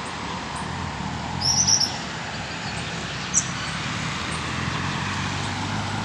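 Coleiro (double-collared seedeater) giving a short burst of high chirping notes about one and a half seconds in and one sharp note a little past halfway, over the steady hum of road traffic that swells near the end as a car passes.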